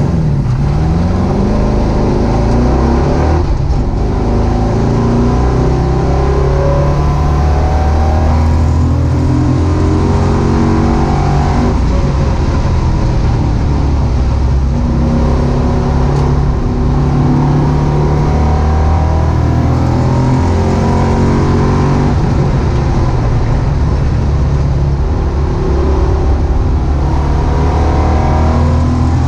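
1967 Mustang's swapped-in 5.0-litre V8 pulling hard on a track lap, heard from inside the cabin: the revs climb and fall again and again as it accelerates and slows through corners.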